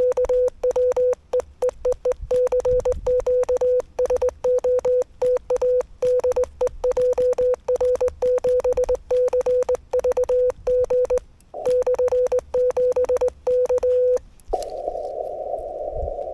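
Hand-sent Morse code: the Yaesu FTX-1F's CW sidetone, a steady pitch keyed on and off in dots and dashes by a straight key, with a click at each keying. About 14 seconds in the sending stops and the receiver's band noise hiss comes back.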